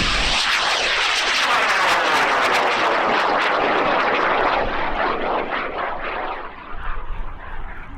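High-power rocket motor firing at liftoff: a loud rushing noise with a sweeping, phasing quality that fades as the rocket climbs away, dying down about six seconds in.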